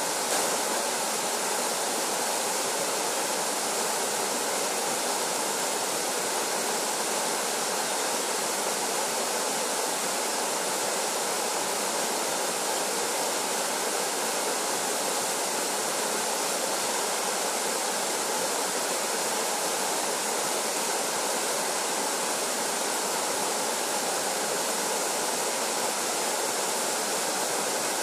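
Small waterfall pouring down a rock chute into a pool: a steady, even rush of falling water that does not change.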